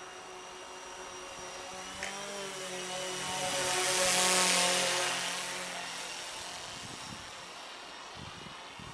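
IdeaFly Mars 350 quadcopter's motors and propellers buzzing as it flies past, swelling to loudest about four seconds in, then fading away.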